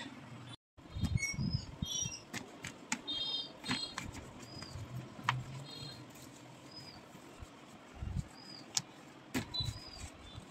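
A cloth wiping a table fan's guard and base, giving soft low thumps and rubbing, while a bird repeats a short high chirp several times.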